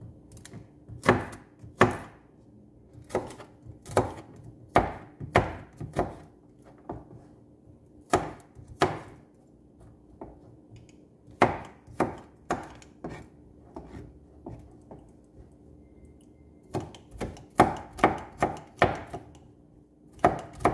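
Chef's knife slicing and chopping garlic cloves on a cutting board: irregular sharp knocks of the blade against the board, about one or two a second, with a quicker run of chops near the end.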